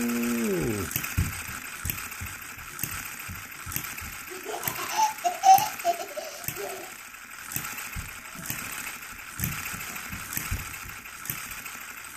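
One-third scale New Holland hit-and-miss gas engine running, its firing strokes coming as sharp pops at uneven gaps. A brief rising-then-falling hum sounds at the very start, and a young girl laughs about four to seven seconds in.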